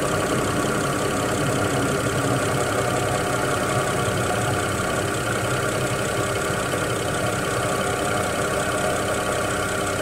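BMW N54 twin-turbo straight-six in an X6 E71 idling steadily, in a car brought in for a rough idle.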